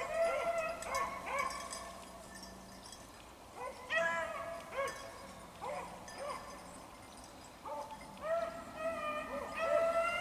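Beagles baying on a rabbit's trail: repeated long, drawn-out bawls in spells, with a lull a couple of seconds in and busier calling near the end. The hounds are giving tongue as they run the rabbit's scent.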